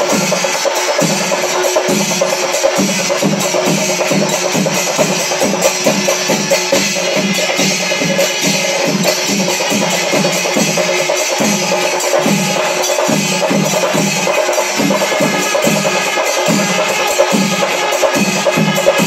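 Kerala melam: chenda drums beating an even, driving rhythm under the continuous clash of ilathalam brass hand cymbals, loud and unbroken.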